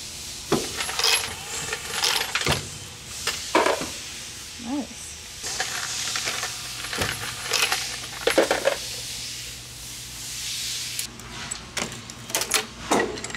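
Dillon progressive reloading press being worked by hand: irregular metallic clanks and clinks as the handle is cycled and brass cases and cartridges rattle through the machine.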